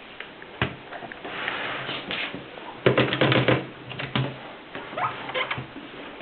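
Mercedes 6 manual typewriter being worked: scattered key clicks, with a quick run of about eight strikes in the middle.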